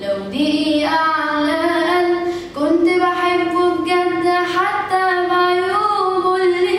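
A boy's unbroken voice singing an Egyptian Arabic love song unaccompanied, drawing out long held notes. The pitch steps up twice in the first few seconds, then wavers with vibrato on a sustained high note.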